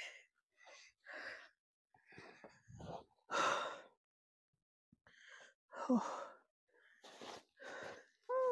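A person breathing hard in a string of short gasps and sighs, with a short falling voiced groan about six seconds in and another at the end: out of breath after exertion in the snow, which the speaker soon puts down to breathlessness.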